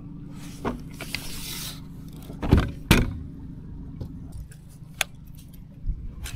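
Several knocks and clatters of handled gear over a steady low hum. The two loudest knocks come close together about halfway through, and the hum stops soon after.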